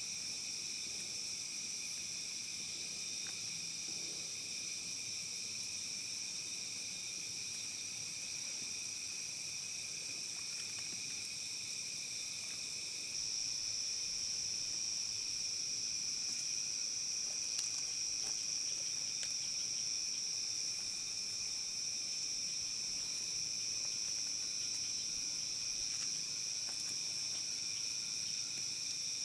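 Steady chorus of forest insects, several high-pitched tones held together without a break, growing a little louder about halfway through.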